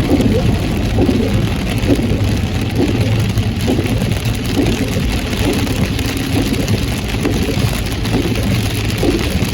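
A car driving in heavy rain: a steady low engine and road hum under the hiss of rain on the car.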